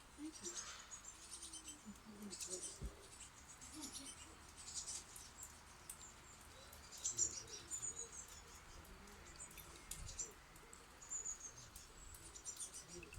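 Small birds at a nest box chirping: clusters of high, thin chirps repeated every second or two, typical of chicks begging while the adults feed them.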